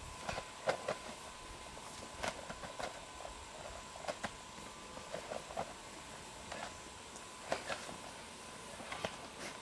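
Soft, irregular knocks and rustles of two people moving through a bo staff form on grass, stepping and handling long wooden staffs, over a faint steady tone.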